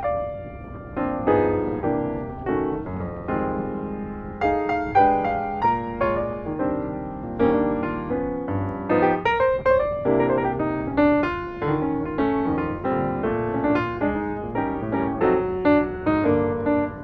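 Background music: a solo piano playing a flowing melody over chords.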